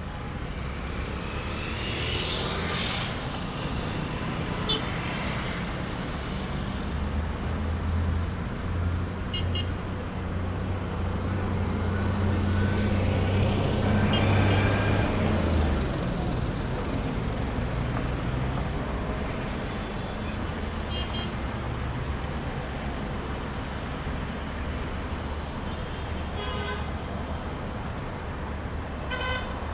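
City street traffic: vehicle engines running and passing. One engine drone builds to the loudest point about halfway through, then falls away. Short car-horn beeps sound several times, with a cluster of them near the end.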